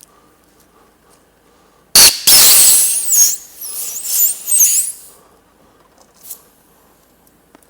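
A sudden loud blast of compressed air with high rubbery squealing, lasting about three seconds, as air rushes out past the stretched rubber CV boot on a pneumatic CV boot fitting tool.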